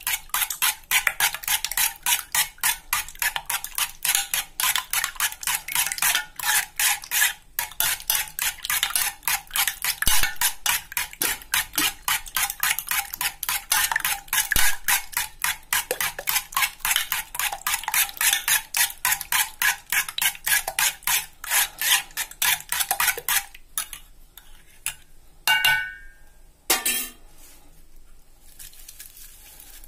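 A spoon beating eggs in an aluminium pot: rapid, even strokes of metal against the pot that stop about three-quarters of the way through. Near the end there is one ringing clink and a knock.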